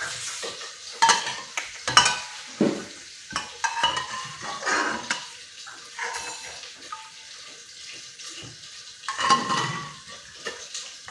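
Metal spoon stirring in an aluminium pot, scraping and clinking against the metal in irregular strokes, with several sharp clinks.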